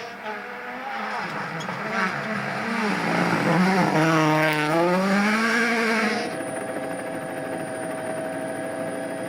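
Rally car engine at speed: the revs drop about four seconds in and climb again, as when it slows for a corner and accelerates out, then settle into a steadier, duller note for the last few seconds.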